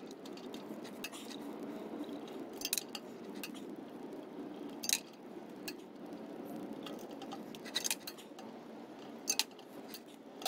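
Scattered sharp metallic clicks as a T25 Torx screwdriver turns and reseats in the bolts of a bicycle disc brake rotor, unscrewing them from the hub; the bolts are on tight.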